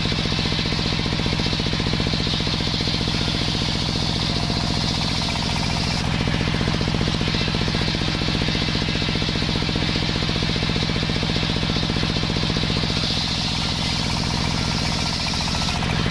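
Circular saw bench ripping sengon wood lengthwise, its motor running with a fast, steady throb under the high hiss of the blade cutting. The cutting hiss is strongest for the first few seconds and again near the end as the timber is pushed through.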